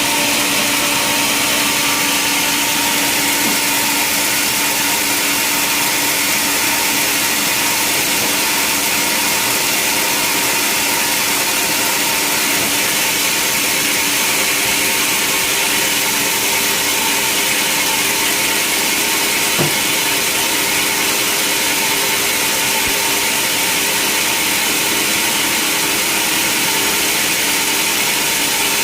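Sawmill saw and machinery running steadily. A single short knock about two-thirds of the way through.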